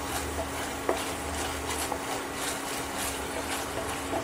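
Tomato and soya-sauce gravy sizzling in a stainless steel frying pan as a spatula stirs it, with a few short knocks of the spatula against the pan, one clear knock about a second in. A steady low hum runs underneath.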